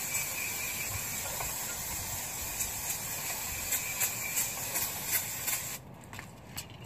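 Aerosol can of non-chlorinated brake cleaner spraying in one steady hiss onto a truck's rear brake hub, cutting off about six seconds in.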